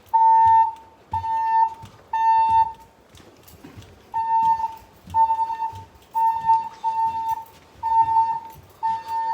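Fire alarm sounding its evacuation tone: beeps of about half a second at one steady high pitch. Three come about a second apart, then after a pause of over a second a further run of beeps follows.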